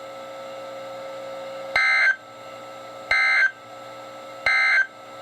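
Emergency Alert System end-of-message data code from a NOAA Weather Radio broadcast, played through a weather radio's speaker: three short, buzzy digital bursts about 1.4 s apart, marking the end of the warning. Between the bursts, radio hiss with a faint steady hum.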